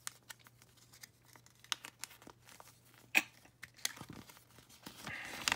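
A folded paper collector's leaflet being handled and unfolded: intermittent paper crinkling with a few sharper crackles, and a longer rustle near the end.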